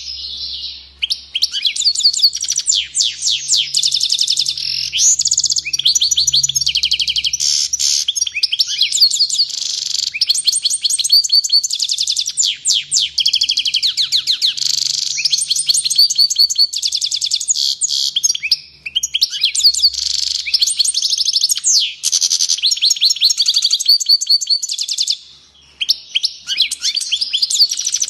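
European goldfinch singing a long, fast, excited song of rapid twittering chirps and trills, broken by a few short pauses.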